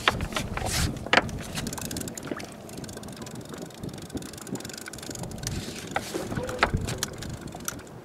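A small boat on the sea: water noise around the hull and wind on the microphone, with scattered sharp clicks and knocks at irregular intervals.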